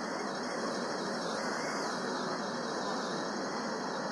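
Steady city street noise: a constant, even hum of traffic with no distinct events.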